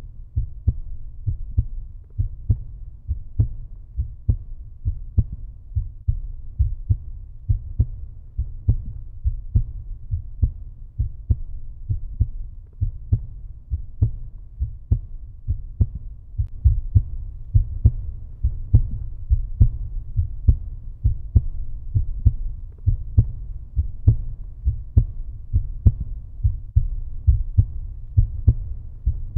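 Regular low thumps about twice a second over a steady low rumble, a pulsing soundtrack like a heartbeat or heavy footsteps.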